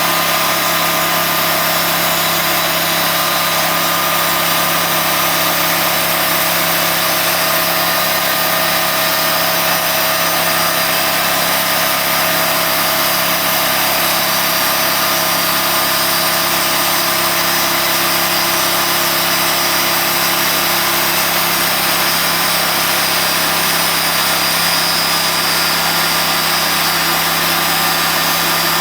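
Sawmill engine running at a steady speed, unchanging throughout.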